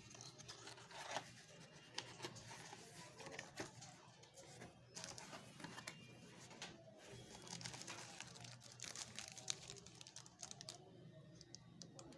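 Packaging being handled and unwrapped: faint crinkling and tearing with scattered sharp clicks, dying down near the end.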